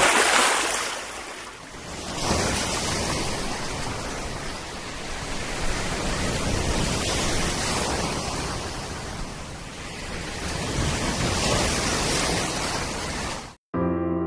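Sea surf washing and breaking, a steady hiss that swells and falls away in slow surges. It cuts off suddenly near the end as music begins.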